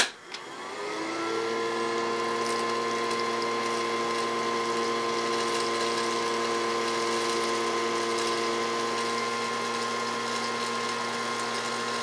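Small battery-powered motor of a Casdon toy Dyson DC22 cylinder vacuum switched on with a click, whining up to speed over about a second, then running steadily as it sucks polystyrene beads up the extension wand.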